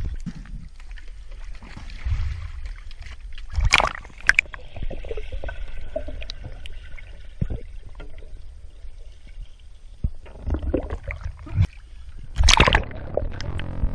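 Water sloshing and splashing around a waterproof camera at the waterline, with muffled underwater rushing while it is submerged. Two loud splashes come about four seconds in and again near the end as it breaks the surface.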